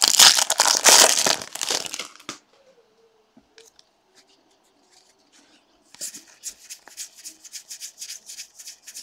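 Foil wrapper of a baseball card pack crinkling and tearing open for about two seconds. After a pause, a stack of trading cards is slid through the hand one card after another, a quick run of light ticks near the end.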